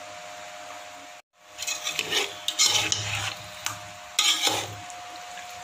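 A steel spoon stirring and scraping through thick, wet meat marinade in a steel pot, with clinks against the pot, in irregular strokes loudest near the middle. A faint steady hum runs underneath.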